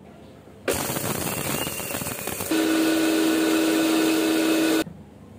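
Electric blender's small dry-grinding jar powdering whole spices (white peppercorns, cinnamon, nutmeg, mace, cardamom, cloves). The motor starts under a second in with a rough, uneven grind, settles after about two seconds into a louder, even whine with a steady hum, and cuts off suddenly near the end.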